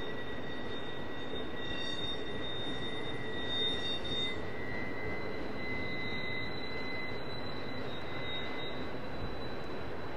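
Double-stack intermodal freight train rolling past: a steady rumble and rush of the cars on the rails, with a high, steady whine over it.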